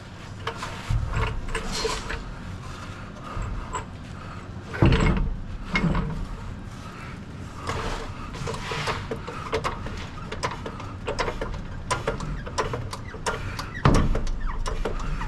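Handling noise from shifting and test-fitting a generator exhaust: scattered clicks and clanks with two heavy knocks, one about five seconds in and one near the end.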